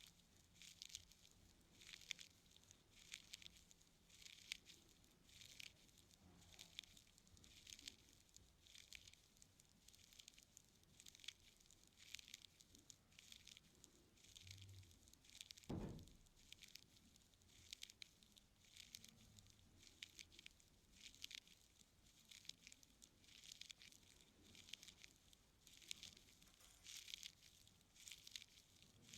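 Faint close-miked scratching and crackling of an ear-cleaning tool working inside an ear canal, in short strokes about one or two a second, with a single dull thump about halfway through.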